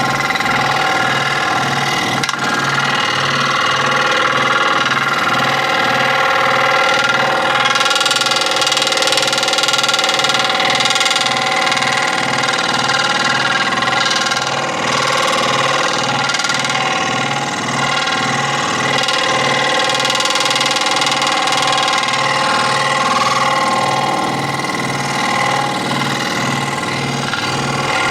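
Electric scroll saw running steadily.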